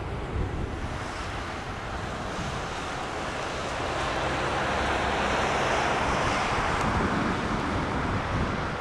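Jet noise from an Airbus A321neo's two CFM LEAP-1A turbofans at takeoff thrust, as the airliner rolls, rotates and lifts off. The noise grows steadily louder and is loudest about two thirds of the way through, then eases slightly.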